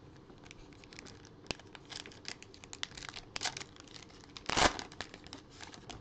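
A trading card pack's wrapper crinkling and being torn open by hands in nitrile gloves: a run of short, sharp crackles, the loudest about four and a half seconds in.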